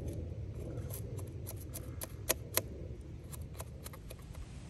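A dozen or so irregular sharp clicks, two louder ones in the middle, over a steady low rumble.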